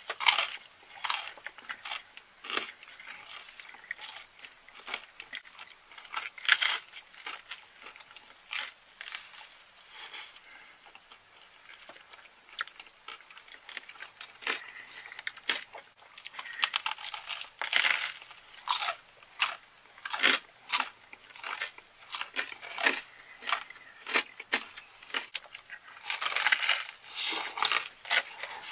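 Two people biting into and chewing thick square slices of tomato, cheese and basil pizza, close to the microphone: a long irregular run of separate bites and chews, packed more tightly about two-thirds of the way through and again near the end.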